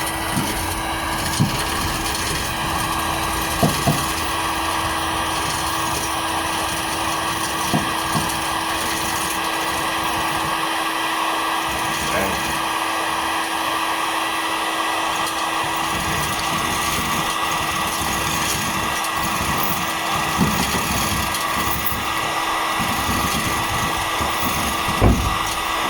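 Steady blowing whir of a heat gun running, with a constant hum, softening the steel of the bonnet. A few short sharp knocks sound over it, the loudest near the end.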